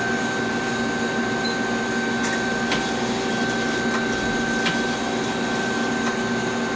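Okuma CNC lathe running: a steady machine hum and whine on several fixed pitches as the sub spindle slides back along its ways, drawing the bar out of the main spindle. A few faint ticks sound in between.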